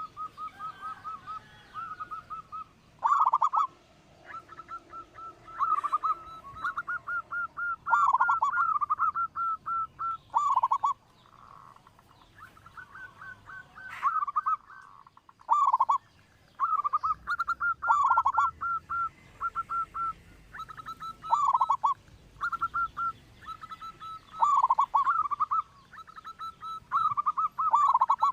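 Local zebra dove (perkutut) with a big voice cooing: phrases of quick staccato notes, each ending in a few louder, lower falling coos, repeated about every two to three seconds. This is the song used as a lure call for other zebra doves.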